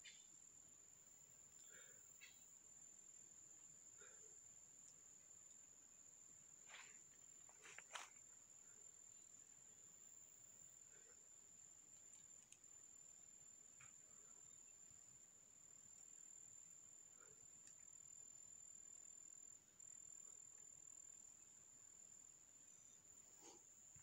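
Faint, steady, high-pitched insect trill that holds one tone throughout, with a few faint rustles and clicks from movement through undergrowth, the loudest about eight seconds in.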